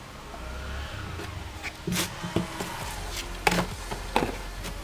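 Phone-box contents being handled: a few light knocks and taps with some rustling of packaging, the loudest knock about three and a half seconds in.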